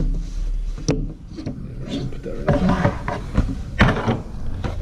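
Hard plastic packaging being handled as the camera is worked free of its display mount: a few sharp clicks and rubbing, the loudest click about four seconds in.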